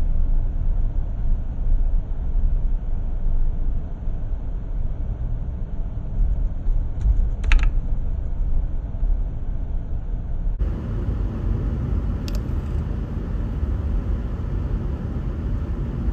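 Steady low rumble of a car driving along a road, with a brief high squeak about halfway through and a short click a few seconds later.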